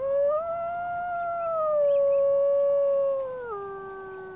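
A wolf howling: one long howl that rises in pitch at first and holds steady, then drops to a lower note about three and a half seconds in and fades.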